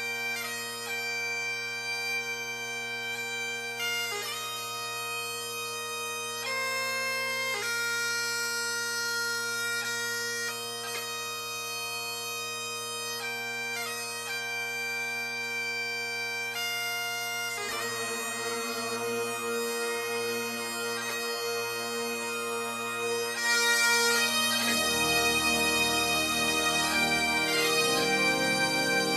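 Bagpipe music: a steady drone under a changing chanter melody. A little past halfway the sound thickens, and near the end it grows louder as lower notes join in.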